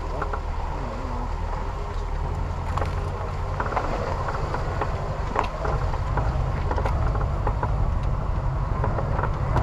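A 4x4's engine running low and steady as it drives slowly over a rutted dirt track, with frequent short knocks and rattles from the body jolting over the bumps.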